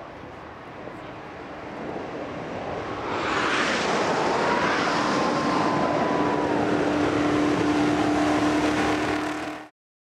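Lotus 38's Ford quad-cam V8 racing engine running hard with a raw, unsilenced note. It grows louder over the first three seconds as the car approaches, stays loud as it passes close by, then cuts off suddenly near the end.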